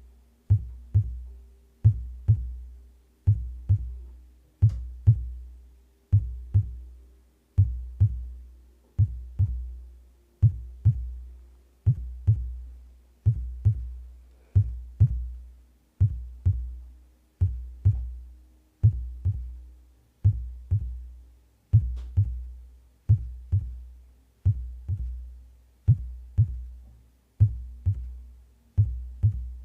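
Amplified human heartbeat: a deep double thump (lub-dub), slow and steady, about once every one and a half seconds. A faint low hum runs underneath.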